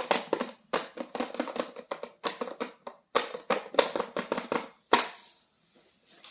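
Hands handling a plastic toy: a rapid run of clicks and crinkles, stopping about five seconds in.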